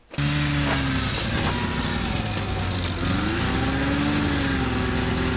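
1980 Scorpion Trail King snowmobile's 440 Cuyuna two-stroke engine running steadily as the sled is ridden across snow, its engine speed dipping briefly about three seconds in and then coming back up.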